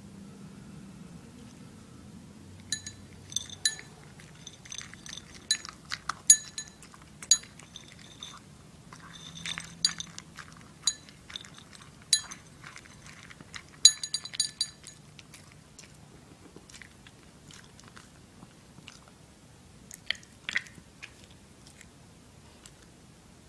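Toy poodle crunching dog food from her bowl, a quick run of sharp crunches and clinks from about three seconds in to about fifteen seconds, then a few more near twenty seconds.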